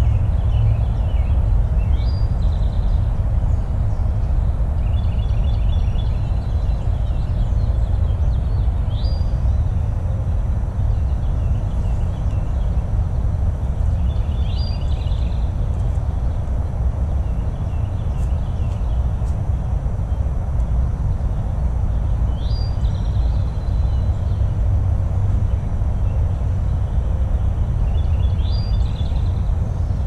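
Songbirds singing over a steady low rumble: one bird repeats a short phrase about every six seconds, a quick rising note followed by a trill, with other birds' chirps in between.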